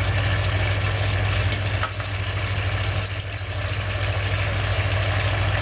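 Steady low motor hum with an even hiss over it, and one faint click about two seconds in.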